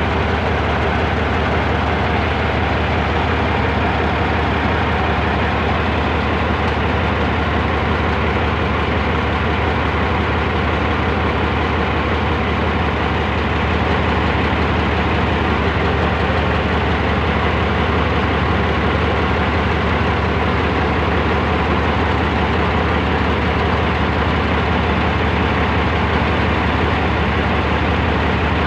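Diesel engine of heavy earthmoving equipment running steadily with a deep, even hum.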